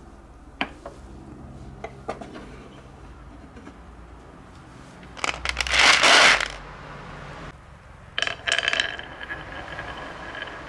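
Glass marbles clicking and rolling down a wooden marble run: a few separate clicks, then a loud clattering rush of many marbles about five seconds in, and a few more clinks with a faint ringing afterwards.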